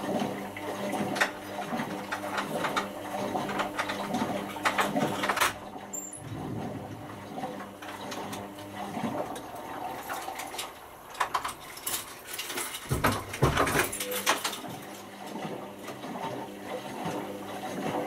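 Indesit IWC6165 washing machine running early in its wash cycle: a steady motor hum as the drum turns, with irregular knocks and clatters, a burst of them about two-thirds of the way through.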